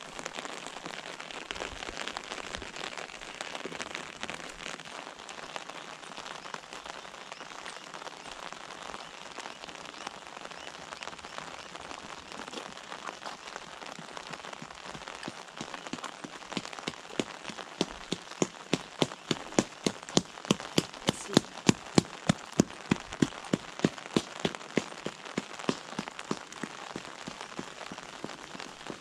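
Steady rain falling on an umbrella overhead. From about halfway through, a run of sharp taps, two or three a second, grows louder than the rain, peaks, then fades before the end.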